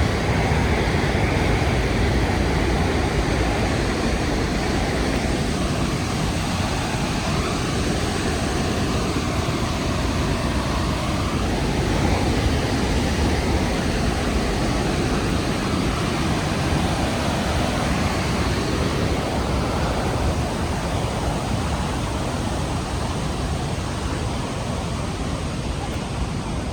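Rhine Falls: the steady, loud rush of a large waterfall's cascading water, an even noise with no breaks.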